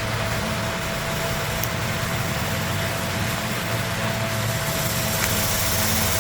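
Steady machine hum with an even hiss: a constant low drone and a thin held tone, unchanging throughout.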